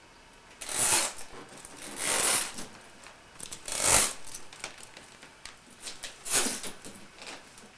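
Small doll stroller's frame scraping and clicking under a person's weight as it is sat in. There are four loud bursts, a second or two apart, with lighter clicks between them.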